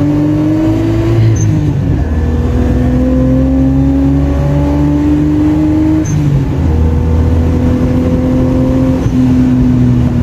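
Car engine accelerating through the gears, heard from inside the cabin: its note climbs steadily in each gear and drops at the upshifts, about one and a half and six seconds in.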